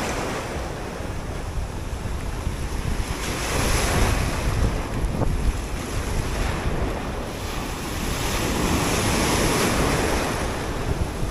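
Sea surf breaking and washing over rocks, the foaming water surging louder about four seconds in and again near the end, with wind buffeting the microphone.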